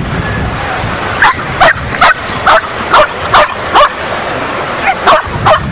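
A Belgian Malinois barking at the decoy: seven sharp barks in about three seconds, then three more after a short pause.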